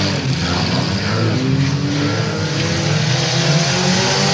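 Several stock-car engines running and revving as the cars race round a dirt track, with a steady rush of noise underneath.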